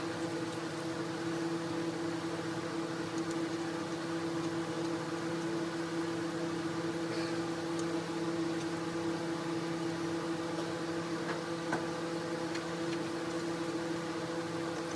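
A steady machine hum, even in level, with a few faint clicks and taps on top.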